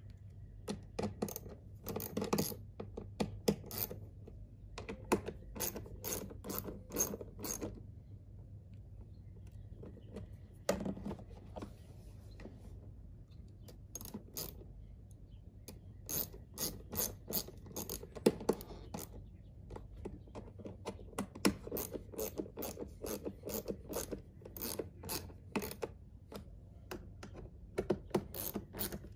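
Hand ratchet clicking in quick runs of strokes, several bursts with short pauses between, as fasteners are driven into the windshield cowl panel.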